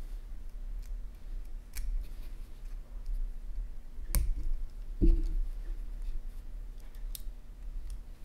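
Small, sharp metal clicks from the brush springs being hooked into place on a brushed RC motor's end bell, spaced out with pauses. A duller knock about five seconds in is the loudest sound.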